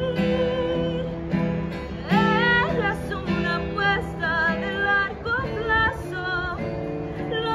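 A woman singing with vibrato on her held notes, accompanied by an acoustic guitar.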